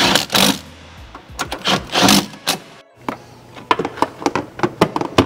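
A Milwaukee cordless impact driver runs in two short bursts, driving a bolt. About three seconds in, a string of light clicks and knocks follows as hands handle parts in the engine bay.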